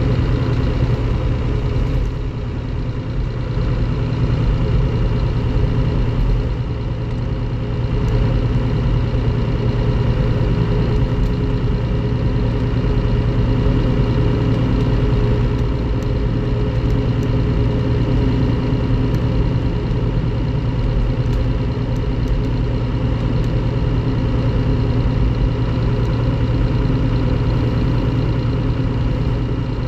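Scania K360IB coach's DC13 inline-six diesel engine running steadily, a low even drone that holds the same pitch throughout.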